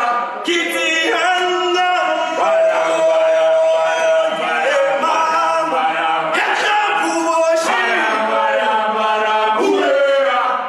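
A group of men singing a gwijo, a South African group chant, together. There are long held notes.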